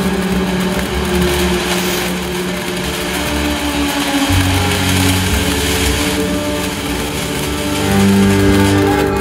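TNT Jitterbug firework fountain spraying sparks with a steady rushing hiss, over background music of held notes with a bass line that comes in about four seconds in.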